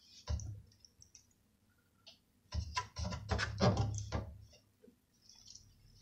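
Plastic clicks and knocks from handling a front-loading washing machine's drain filter and the plastic container catching its water. One knock comes just after the start, then a dense run of clicks and knocks lasts about two seconds in the middle.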